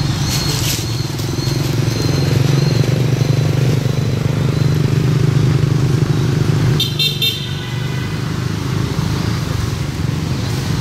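A motor vehicle's engine running steadily, with a brief high-pitched toot, like a horn, about seven seconds in.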